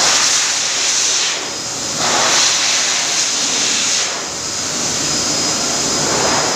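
Pet grooming force dryer blowing: a loud, steady rush of air that dips in level briefly twice.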